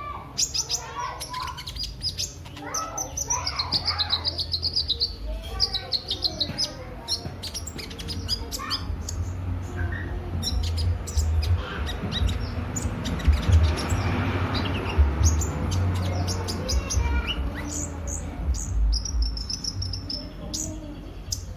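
A kolibri ninja sunbird singing: quick, high-pitched chirps, clicks and short trills in rapid, irregular runs, over a steady low rumble.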